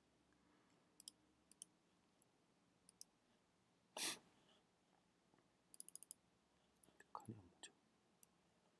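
Faint computer mouse clicks: a few scattered single clicks and a quick run of about five just past the middle. A short, louder noise about four seconds in, and a brief lower sound near the end.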